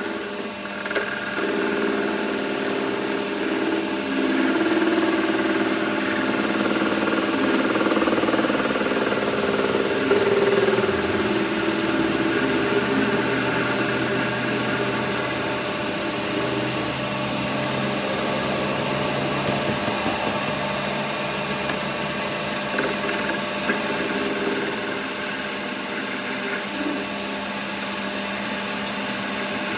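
A workshop machine tool running steadily under power, with a constant hum and a high-pitched whine that comes and goes.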